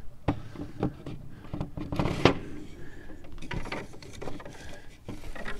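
Wooden knocks, clunks and scrapes of a frame assembly jig's board being pulled out and the assembled wooden beehive frames being handled, a few scattered knocks of varying loudness.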